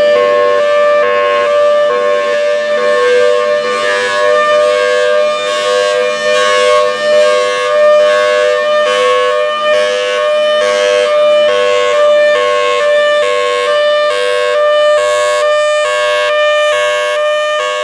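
Federal Signal Thunderbolt 1003 outdoor warning siren sounding its Hi-Lo signal, a loud two-tone wail that switches evenly back and forth between a high and a low pitch.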